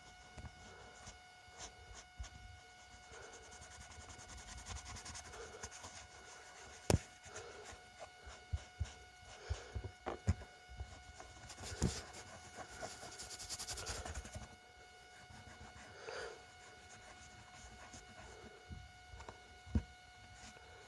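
Small plastic toy-car parts being handled and rubbed with a cloth, with a few sharp clicks and knocks as pieces are moved or set down, over a faint steady whine.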